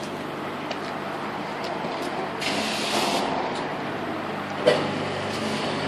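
Self-service car wash pressure washer: a steady machine hum, with a short burst of spray hiss about two and a half seconds in and a single knock near the end.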